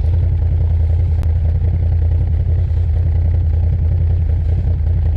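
Can-Am Outlander XMR ATV engine running at a steady speed, loud and close, with one sharp click about a second in.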